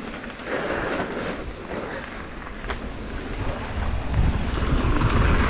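Mountain bike riding a dirt trail, heard at the rider's camera: wind rushing over the microphone, with a low rumble of tyres and scattered knocks and rattles from the bike. The rumble gets louder about four seconds in.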